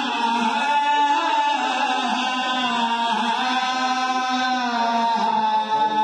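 Male voices chanting a slow lament melody in unison, the lead voice at the microphone joined by men singing along behind him; long held notes that slide gently up and down in pitch.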